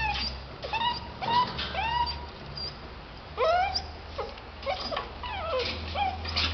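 Puppies whimpering and yipping, about ten short high whines that each rise and fall in pitch, with a steady low hum underneath.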